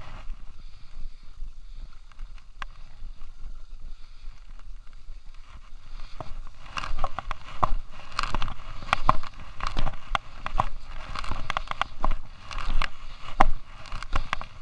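Edges sliding and scraping over groomed snow during a downhill run, with a steady wind rumble on the body-worn microphone. From about six seconds in the scraping grows louder and choppier, dense with sharp irregular clicks, as the rider carves turns on the hard-packed piste.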